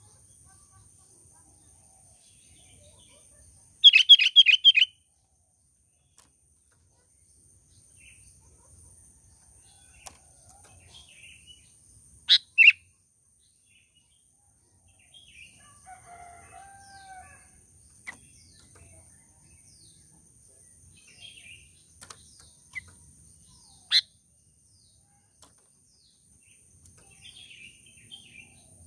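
Sooty-headed bulbul calling: a loud quick run of about five notes about four seconds in, two sharp notes around twelve seconds, another single note later on, with fainter chirps in between.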